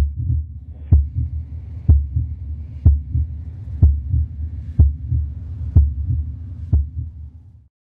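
Heartbeat sound effect: deep, regular thumps about once a second, each followed by a weaker one, over a low rumble.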